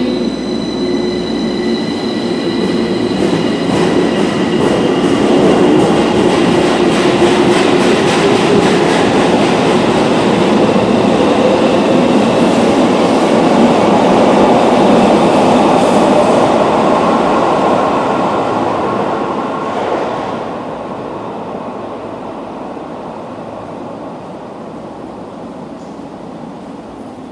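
Chiyoda Line subway train running through the underground station. Its noise builds to a peak around the middle, with a motor whine rising in pitch, then drops off about three-quarters of the way through and fades away.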